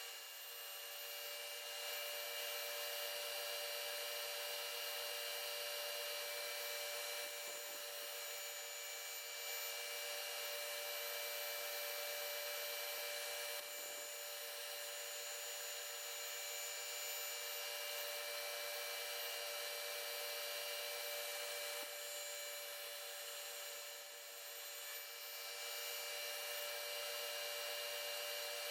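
A steady machine hum holding several fixed tones over a hiss, with slight dips now and then.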